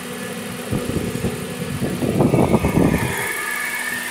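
Idling engine of a 2005 Toyota Yaris with its newly fitted air-conditioning compressor running: a steady hum, with a stretch of louder, uneven noise between about one and three seconds in.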